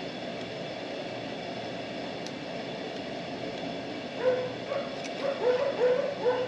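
Steady background hum, then a dog yipping, about six short high yips in quick succession over the last two seconds.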